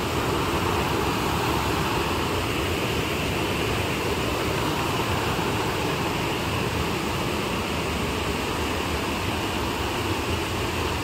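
Water pouring steadily over the steps of a small concrete weir, an even rushing sound with no breaks.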